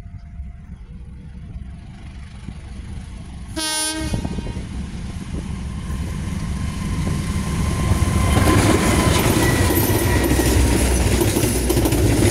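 A diesel locomotive gives one short horn blast about four seconds in. Then the engine and the wheel-on-rail noise of the passenger train grow steadily louder as it approaches and its coaches run past close by.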